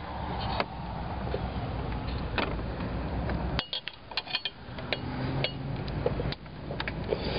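Hand tools clinking and clicking against metal engine parts, with a quick cluster of sharp clinks about four seconds in, over steady background noise.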